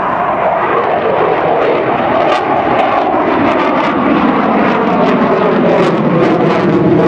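Eurofighter Typhoon's twin EJ200 jet engines at high power as the fighter climbs steeply overhead: a loud, rough roar with crackling, its main pitch sliding slowly lower while the level slowly rises.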